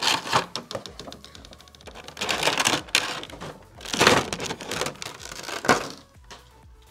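Clear plastic packaging crinkling in several bursts as a vinyl Funko Pop figure is pulled out of its cardboard box and unwrapped from its plastic bag, with a quick run of light clicks at the start.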